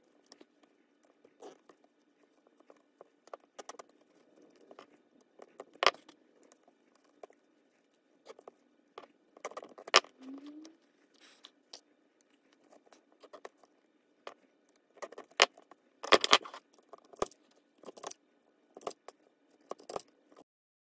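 Handling noise of craft work: irregular small clicks, taps and rustles as fabric ribbon is tied onto a pegboard wreath form and hand tools such as pliers are picked up and put down on a cutting mat, over a faint steady hum. It cuts off abruptly just before the end.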